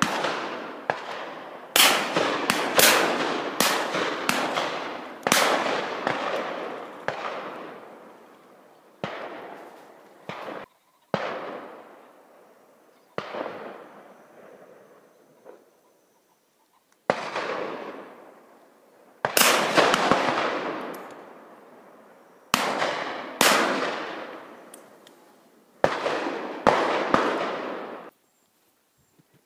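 Shotguns firing repeatedly from several guns at once, in irregular shots that sometimes come two or three close together, each report echoing and dying away over a second or two. The firing stops about a second before the end.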